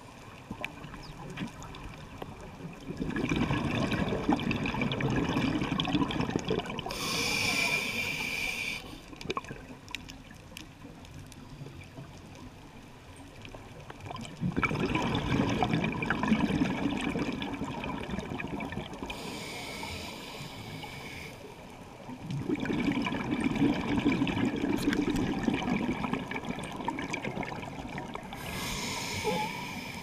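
Scuba regulator breathing heard underwater: three long exhalations of gurgling bubbles, each followed by a short, high hiss as the diver inhales through the regulator.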